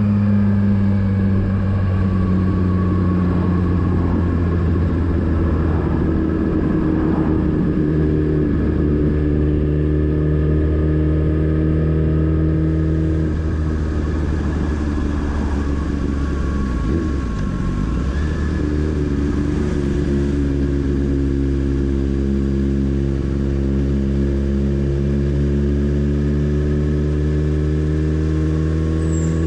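Motorcycle engine running steadily on the road. Its pitch sags about halfway through, then rises again over the last ten seconds.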